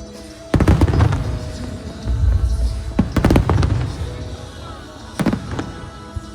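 Aerial fireworks shells bursting: sharp reports with deep booms, a few about a second in, a quick cluster around the middle, and two more near the end, over a music soundtrack.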